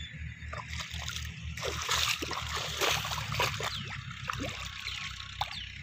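Muddy irrigation water in a shallow field channel, splashing and sloshing irregularly as a person wades through it and works the mud with a hoe, over a steady low rumble.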